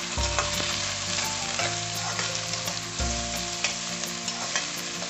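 Chopped onions sizzling in hot oil in a steel kadai, stirred with a flat spatula that scrapes and ticks against the pan.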